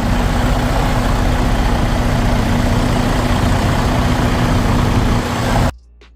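Heavy diesel truck engine idling close by, a steady low rumble under a loud hiss. It cuts off abruptly near the end.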